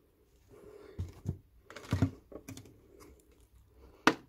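A plastic water bottle being handled after pouring and set down on a windowsill: a series of light knocks and plastic clicks, the strongest about two seconds in and a sharp click near the end.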